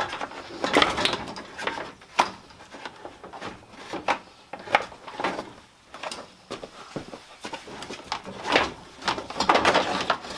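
Irregular clicks, knocks and light rattles of hand tools and car parts being handled while working on the car's front end.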